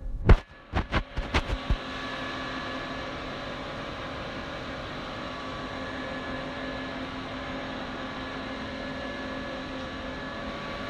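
A handful of sharp knocks in the first couple of seconds, then a steady machine hum made of several constant tones, like workshop machinery running.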